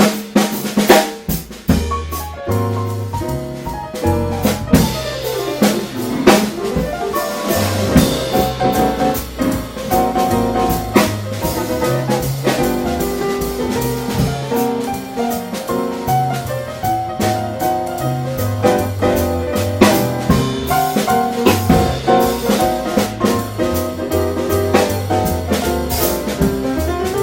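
Jazz trio music: drum kit, bass and piano playing together, with busy drumming near the start.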